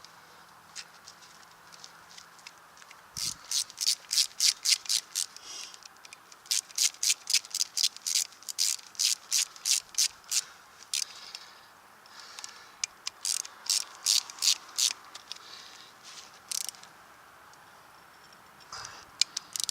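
Hand socket ratchet clicking in quick runs, about four clicks a second, as the bearing-cap bolts of a new U-joint are run down and tightened. There are several runs of a few seconds each, with short pauses between them.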